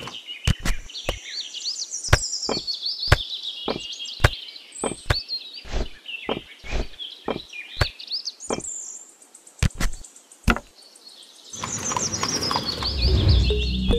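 Miniature clay bricks clicking and knocking in a quick series of sharp taps as they are dropped one by one into a small woven bamboo basket, with birds chirping throughout. Music comes in near the end.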